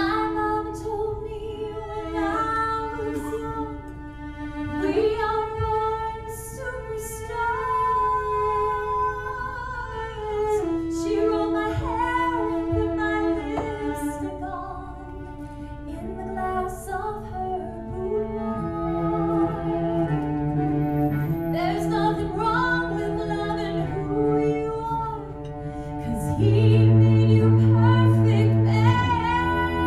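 A woman singing into a microphone over a cello accompaniment, holding long notes with vibrato. Near the end the cello's low notes and the voice grow louder.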